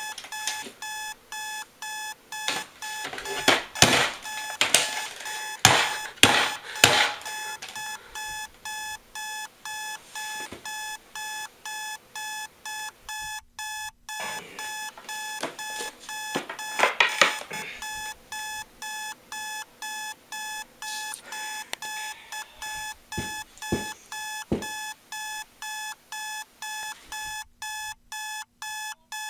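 Digital clock radio alarm beeping in rapid, evenly spaced pulses of a high, multi-toned beep that never lets up. Louder knocks and clatter come and go over it as the clock is grabbed, shaken and turned over in an attempt to silence it.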